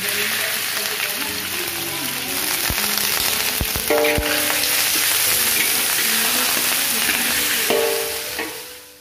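Diced fatty pork sizzling in hot oil in a wok, being sautéed so that its fat renders out. A spatula stirs it, with a few sharp clicks against the wok about three to four seconds in. The sizzle fades near the end.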